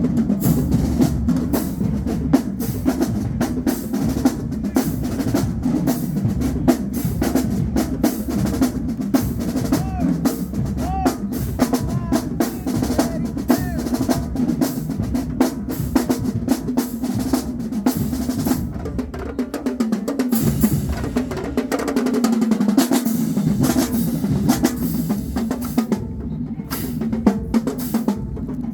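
A marching band drumline playing a cadence: rapid snare strokes over pounding bass drums. The bass drums drop out for a few seconds about two-thirds of the way through, then come back in.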